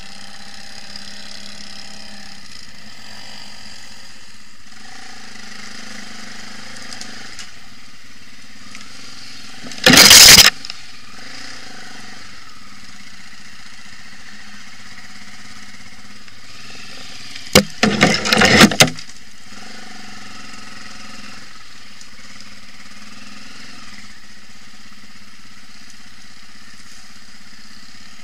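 Quad (ATV) engines running at a steady moderate level. Two short, very loud blasts of noise break in, once about ten seconds in and again as a cluster around eighteen seconds.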